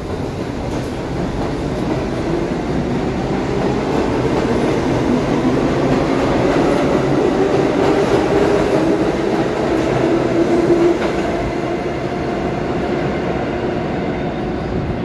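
Subway train of R62A cars pulling out of the station and picking up speed: the traction motors whine with a rising pitch over the rumble and clatter of the wheels. The sound is loudest as the last cars pass, then eases off as the train pulls away into the tunnel.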